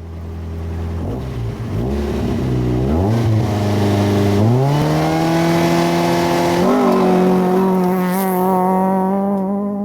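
A car engine revving up, its pitch climbing in several steps over the first seven seconds, then running steadily and edging higher near the end.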